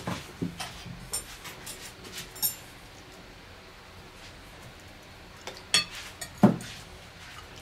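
Metal cutlery clinking and scraping on plates as people eat: scattered clicks in the first couple of seconds, a quieter stretch, then more clinks and one short, louder sound about six and a half seconds in.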